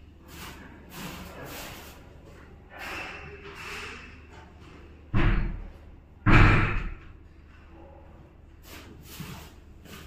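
Two loud thuds about a second apart, a little past the middle, each ringing briefly, with softer noises before them.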